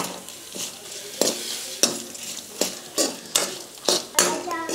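Steel spoon scraping and stirring whole spices (coriander seeds, cumin, urad and chana dal, red chillies) as they roast in a little coconut oil in a steel kadai. The scraping strokes come irregularly, about two a second, over a light sizzle.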